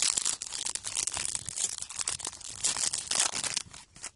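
Foil wrapper of a Panini trading-card sachet torn open and crinkled by hand, with crackly rustling throughout; near the end the cards are pulled out of the pack.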